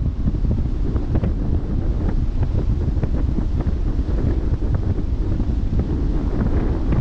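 Wind blowing across the microphone on a moving ship: a steady low rumble broken by many brief crackles, with the wash of the sea beneath.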